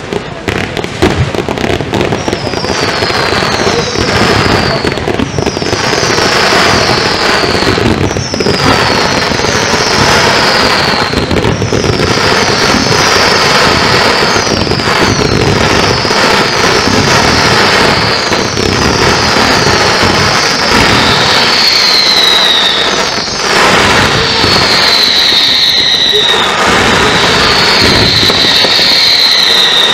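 Continuous fireworks barrage: dense, rapid bangs and crackling with high whistles, each falling in pitch, one after another about once a second.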